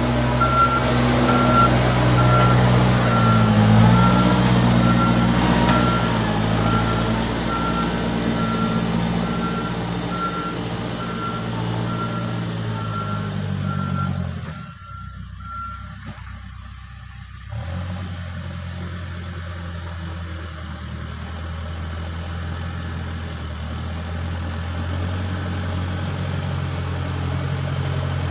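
Tractor-loader-backhoe's diesel engine working, with its reversing alarm beeping at an even pace until a little past halfway. The engine's pitch shifts in the first few seconds, falls away briefly past the middle, then runs steadily.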